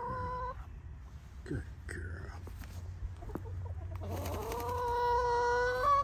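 Backyard hens calling: a few short calls, then a long, drawn-out call near the end lasting nearly two seconds.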